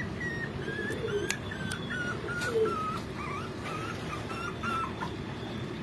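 Pomeranian puppy whimpering: a run of short, high whines, about three a second, that stop near the end.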